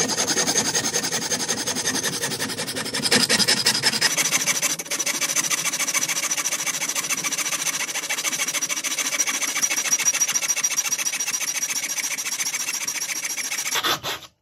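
Steel hand saw cutting through a steel screw buried in a wooden block: rapid back-and-forth strokes of metal grinding on metal, with a steady high-pitched squeal over the rasp. The sawing stops abruptly near the end.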